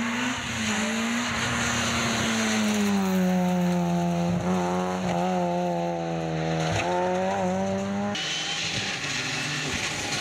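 Peugeot 106 rally car engine held at high revs as the car passes and pulls away, its note breaking briefly a few times. About eight seconds in it gives way abruptly to a quieter, more distant rally car engine.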